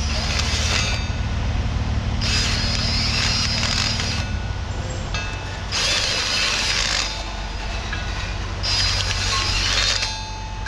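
Cordless drill spinning a tapered reamer in short bursts, scraping as it cleans out the bolt holes of a steel loader mounting bracket. Four bursts of a second or two each, with a steady low hum underneath.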